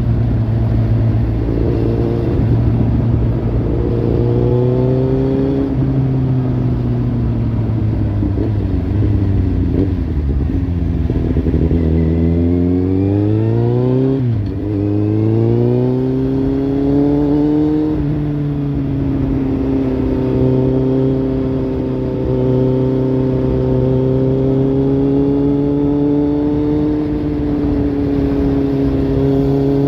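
Kawasaki Z800's inline-four engine running through a Lextek slip-on exhaust. Its pitch sinks slowly over the first dozen seconds, climbs for about two seconds, drops sharply about fourteen seconds in, then holds steady.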